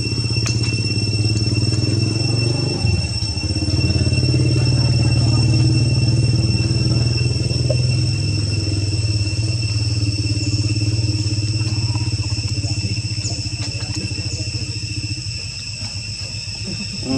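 An engine running steadily with a low throb, fading out a couple of seconds before the end, with a steady high-pitched whine above it.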